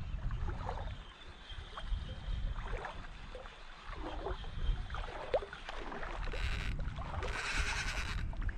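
Shallow water sloshing and splashing at the beach edge, with wind rumbling on the microphone. Near the end come two louder rushing hisses, the second lasting about a second.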